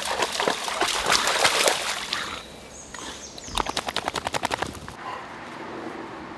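Boxer dog splashing through a shallow, fast-flowing stream, then shaking itself off about three and a half seconds in: a quick rattle of about ten slaps a second lasting around a second.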